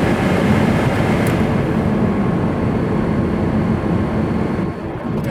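Newly installed replacement HVAC blower motor fan in a Pontiac Vibe running, a steady rush of air with a faint steady whine. It runs without a rattle but with a little bit of buzz.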